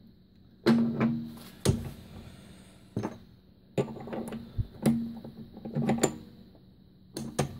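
A series of sharp metal clanks and knocks, about half a dozen spread over several seconds, some ringing briefly. A lathe tool holder with its cutting tool is being handled and fitted onto the quick-change tool post.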